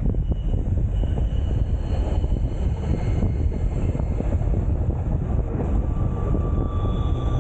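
Glacier Express train running along the track: a steady rumble of wheels on rails, with a faint thin high whine coming in near the end.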